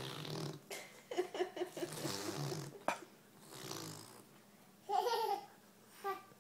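A baby makes vocal noises with his mouth pressed against a tabletop: low hums and babbling. There is a burst of laughter about five seconds in.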